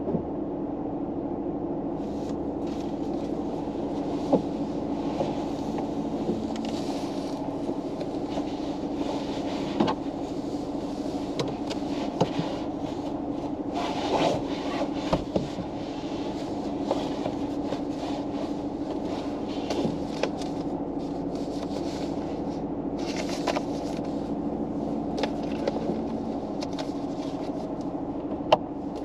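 Steady low hum inside a car's cabin, with scattered light clicks and soft rustles over it.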